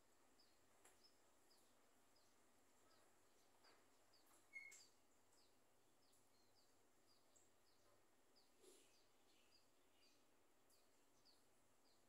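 Near silence, with faint high chirps repeating about twice a second and one brief, louder chirp about halfway through.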